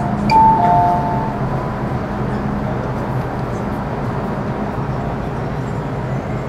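Cab-less interior running noise of an MTR Metro-Cammell M-Train (CT-Stock, GEC GTO chopper) on the Island Line, a steady rumble of the car in the tunnel. About a third of a second in, a two-note falling chime sounds. A low steady hum fades out about three seconds in.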